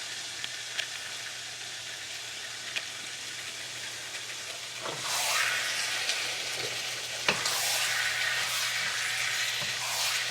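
Onions marinated in mustard and seasonings sizzling in hot oil in a pan. The sizzle swells louder about halfway through, with a sharp knock a couple of seconds later.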